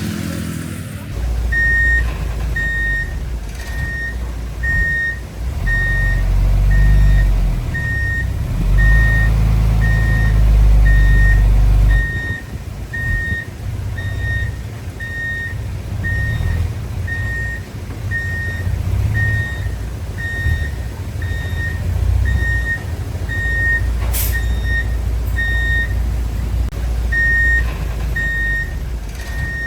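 A heavy machine's reversing alarm beeps steadily, about once every three quarters of a second, over the deep rumble of diesel engines. The engine noise swells for several seconds and then drops off partway through. A single sharp click comes near the end.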